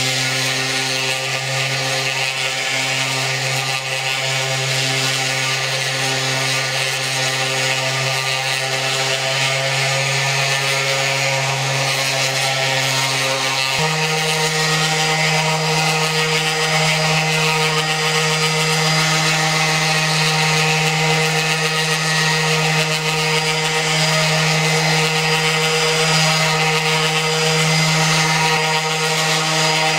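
DeWalt random orbit sander running steadily against a hard painted wooden box, a motor hum under the hiss of the abrasive: dry-sanding an oil-paint base coat flat. The hum's pitch steps up suddenly about halfway through and then holds.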